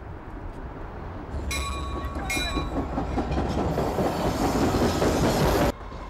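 Rumble of a passing vehicle that swells over a few seconds, with high, steady squealing tones about a second and a half in, and cuts off abruptly just before the end.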